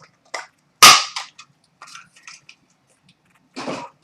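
Sharp cracks and rips of a sealed trading card box and pack being torn open: one loud crack about a second in, smaller snaps and crinkles after it, and a short tearing sound near the end.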